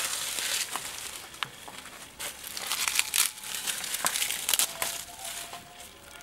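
Dry leaves and twigs rustling and crackling as they are grabbed and gathered by hand from a leaf-covered forest floor, with a few sharp snaps of twigs.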